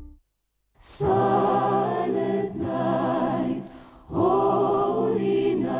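Short TV ad-break jingle: a choir sings two long held chords, the first starting about a second in and the second about four seconds in.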